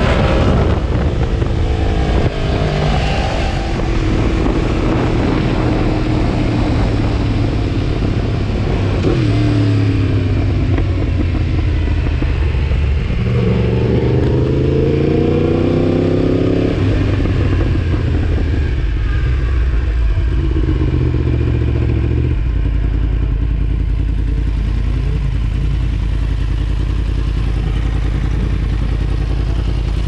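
Yamaha MT-10 SP's crossplane inline-four engine ridden slowly, its note falling and rising with throttle and gear changes. It settles into a steady idle about two-thirds of the way through.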